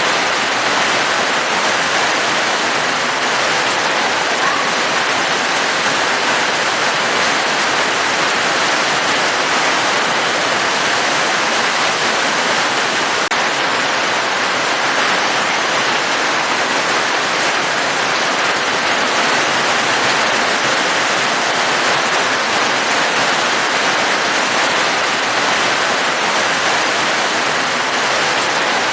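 Steady, unbroken rush of falling water, a rain-and-waterfall ambience with no separate drops or pauses.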